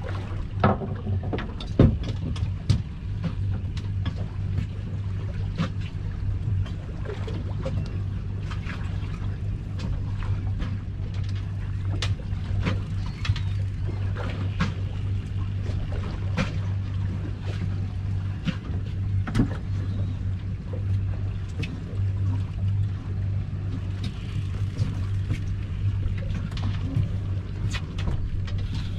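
Boat engine running steadily with a low drone, with frequent short knocks and clicks over it.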